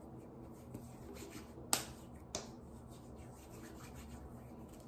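Hands rubbing hand lotion together, with faint wet swishing and a sharp smack of the palms nearly two seconds in, then a smaller one about half a second later.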